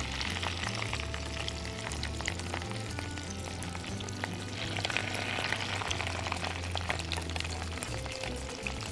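Salmon fillets laid skin-side down into hot olive oil, butter and ghee in a nonstick frying pan, sizzling steadily with fine crackling pops. The sizzle grows louder about halfway through as a second fillet goes into the fat.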